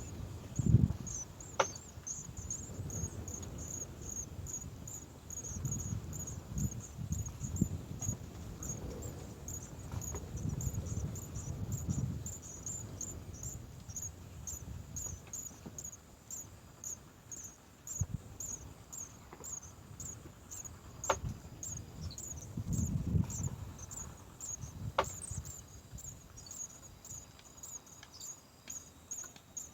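An insect chirping steadily in short, high-pitched pulses, about two to three a second. Underneath are low rustling rumbles and a few sharp knocks, loudest about a second in and again around 23 seconds.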